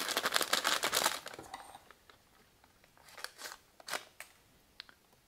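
MRE pouch crinkling as it is handled for about a second and a half, then a few short scraping sounds as a freshly sharpened knife slices through the pouch to cut its top off.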